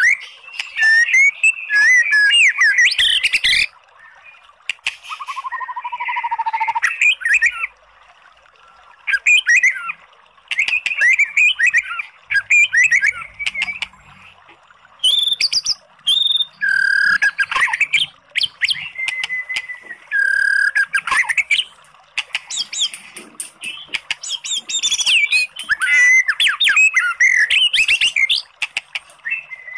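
White-rumped shama singing loudly: bursts of rapid, varied phrases of whistles, trills and harsh notes, broken by short pauses, with a few held whistles past the middle. It is the agitated full song used as a trigger recording to provoke a caged shama into answering.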